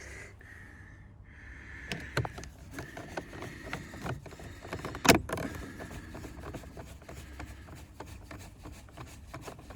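Hands working on a Ford Mondeo mk4 front door's plastic trim and handle: scattered clicks and rubbing, with one sharp knock about five seconds in.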